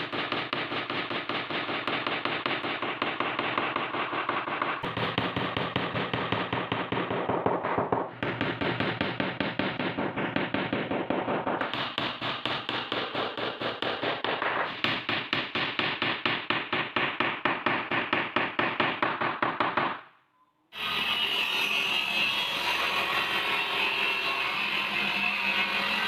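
Rapid, evenly repeated knocking on wood, several strokes a second, like hammering. About twenty seconds in it stops briefly and a power tool starts, running with a steady high whine.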